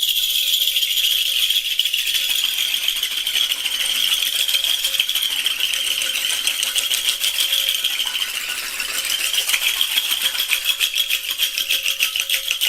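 Small children's sleigh bells jingling continuously as they are shaken through a shallow bowl of water. A little past the middle the shaking turns into quick, even pulses.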